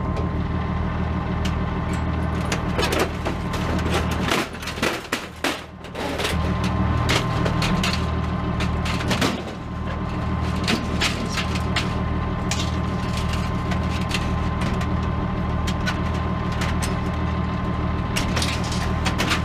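A steady low mechanical drone, like a motor running, with scattered clicks and rattles over it. It drops away briefly about four to six seconds in.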